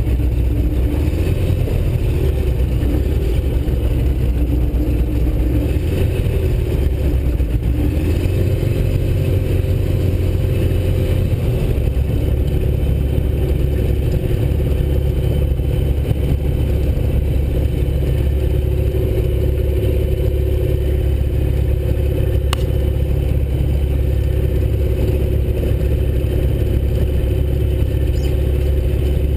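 Rotax 912 flat-four aircraft engine fed by an AeroInjector, running steadily at taxi power and heard from inside the cockpit. The engine note shifts about ten seconds in, and a single sharp click comes a little past twenty seconds.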